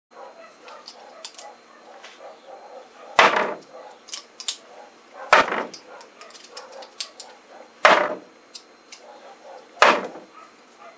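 Four darts striking a dartboard one after another, about two seconds apart, each a sharp thud with a short ringing tail, over a faint background murmur.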